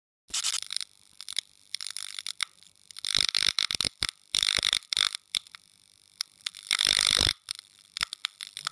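Electric crackling and sizzling sound effect, like a neon sign sparking on, in irregular bursts with the loudest clusters a little past three seconds, around four and a half and around seven seconds, thinning to scattered clicks near the end.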